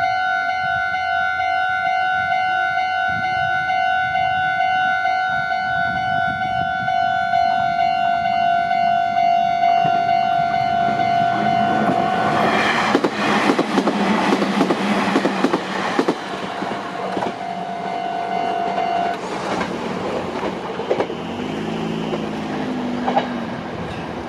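A Japanese level-crossing warning bell rings with a steady repeating electronic tone. About ten seconds in, a Meitetsu train arrives and passes over the crossing, wheels clattering over the rail joints, loudest just after halfway. The bell fades out about three quarters of the way through while the train keeps running past, with a lower whine near the end.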